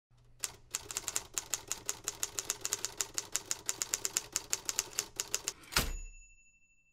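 Typewriter keys clacking in a fast, even run of about seven strikes a second, used as the sound of the title text typing out. It ends with one louder clack and a brief ringing tone.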